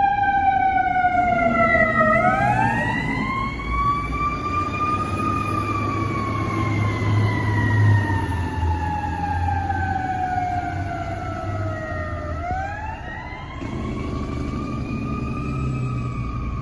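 Fire truck siren on a slow wail, rising over a few seconds and falling away more slowly, twice, over the low running of the truck's engine.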